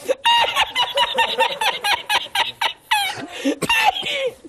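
A man laughing uncontrollably in a rapid run of short, high-pitched staccato hoots, then two longer squeals that fall in pitch near the end.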